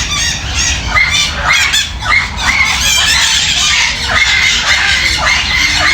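Several parrots squawking and squealing, shrill hooked calls repeating several times a second and overlapping one another.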